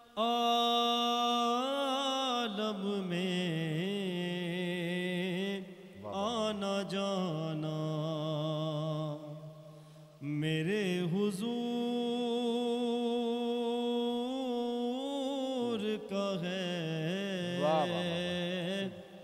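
A man singing a naat, an Urdu devotional poem in praise of the Prophet, solo into a microphone. He draws out long ornamented notes with vibrato in three long phrases, with short breaths between them.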